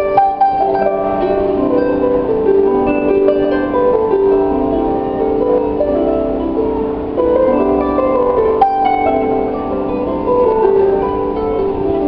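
Harp played solo by hand: plucked notes ringing into one another in a flowing melody.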